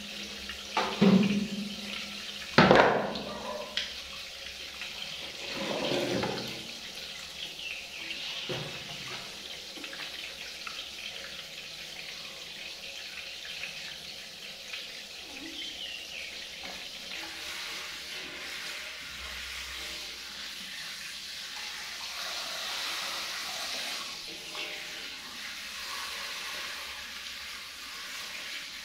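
Handheld shower head spraying water into a metal basin, a steady hiss of running water. A few loud short sounds break in during the first few seconds, the loudest about three seconds in.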